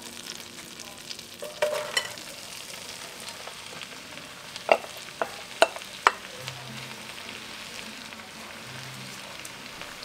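Butter sizzling and frying in a cast-iron pot over a wood fire. About halfway through come a few sharp knocks and clinks as sliced onions, peppers and mushrooms are tipped into the pot from a glass bowl.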